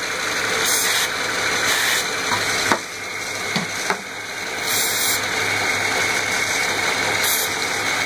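1995 Ford Mustang 3.8-litre V6 idling steadily, with a few short hisses of aerosol brake cleaner sprayed around the PCV hose to test for a vacuum leak. The idle does not change with the spray, a sign that there is no leak at that hose.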